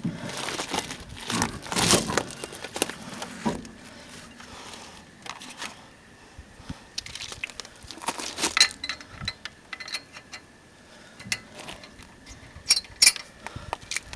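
Scattered metallic clinks, clicks and rattles of lug nuts and a socket wrench being handled as a car wheel is refitted to its hub. The clatter is busiest at the start, and there are a couple of sharp clicks near the end.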